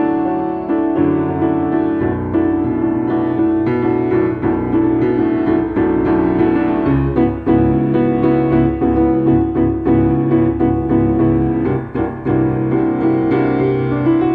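Solo piano improvising in a jazz style, with sustained chords; about halfway through, low bass notes come in and the playing grows busier.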